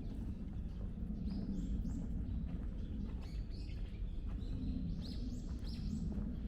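Small birds chirping over and over, each call a short note falling in pitch, coming thicker in the second half, over a steady low outdoor rumble.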